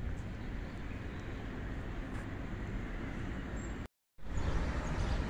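Outdoor town ambience: a steady, low rumbling noise with no distinct events, broken by a brief complete silence about four seconds in.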